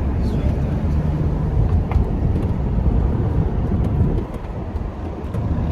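A moving car's steady low road and engine rumble, with a few faint clicks over it.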